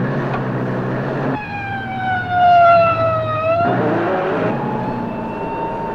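A truck engine running, then about a second and a half in a horn sounds for about two seconds, its pitch falling slowly before it cuts off; a fainter high tone and the engine carry on after it.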